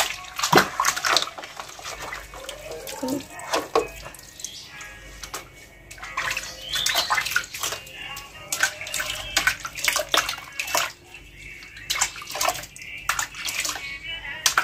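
Water splashing and sloshing in a plastic basin as hands scoop warm water and rub it over a wet cat's fur, in many short, irregular splashes.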